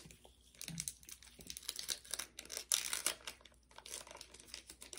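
Crinkling and rustling of a trading-card pack wrapper and cards being handled in gloved hands, in irregular bursts.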